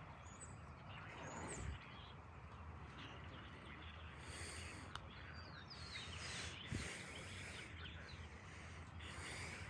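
Faint outdoor ambience with birds chirping now and then.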